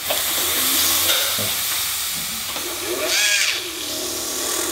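Dental implant surgical handpiece running a D-step drill into a model jawbone, with a steady hiss. About three seconds in, a whine briefly rises and falls in pitch.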